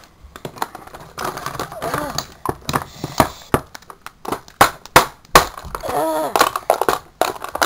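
Hard plastic clicks and knocks as Barbie dolls are knocked about against a plastic toy car, irregular and close to the microphone, with a child's voice in between.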